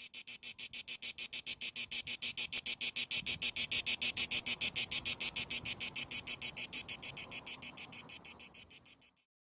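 Cicada song: an even, rapid pulsed buzz, about eight pulses a second. It swells to its loudest about halfway through, then fades and stops shortly before the end.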